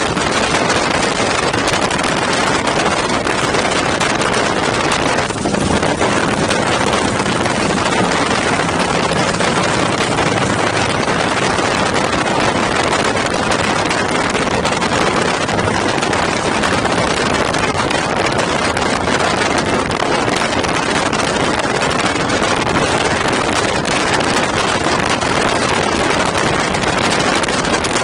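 Loud, steady wind rush on the microphone of a camera riding along on a moving motorcycle, with the motorcycle engine running underneath.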